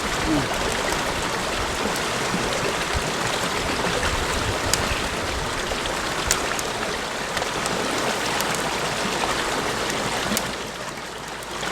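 Stream water flowing steadily over stones, a constant rushing, with a few light clicks scattered through it.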